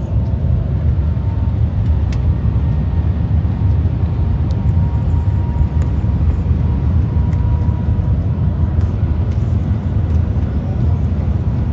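Train running at speed: a steady low rumble with a faint, steady high whine above it.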